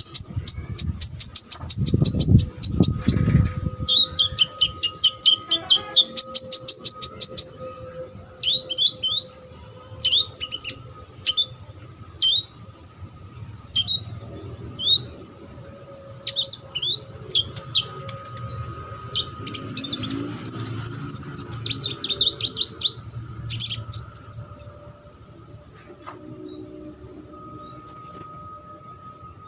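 Kolibri ninja (konin) sunbird singing a lively, varied song: fast high trills and chirps alternating with series of short downslurred notes, with a few low thumps about two seconds in.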